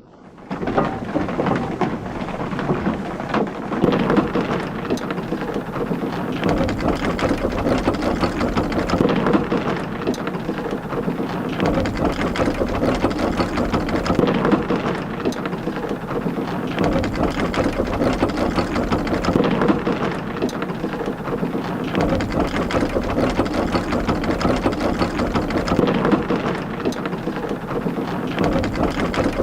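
Water pouring and splashing steadily onto a sawmill's large wooden waterwheel, a dense rushing noise that starts suddenly and swells slightly every few seconds.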